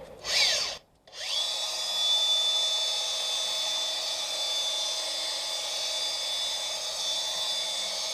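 Handheld stone polisher with a soft polishing disc: a brief loud burst whose pitch falls as the motor winds down, a moment of silence about a second in, then the motor spins back up with a rising whine and runs at a steady high pitch.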